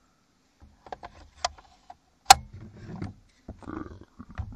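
Beretta BRX1 straight-pull rifle being reassembled by hand: a series of sharp clicks and snaps as parts seat back into the action, the sharpest about two seconds in, with a short rustle of handling before a few more clicks near the end.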